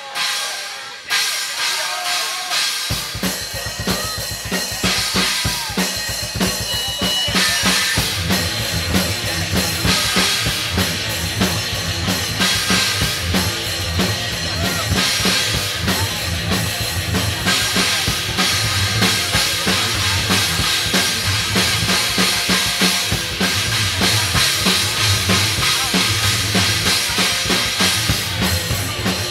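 Thrash metal band playing live at full volume: a drum kit drives the song with pounding bass drum and snare under a dense wall of band sound. The low end of the band comes in strongly about three seconds in.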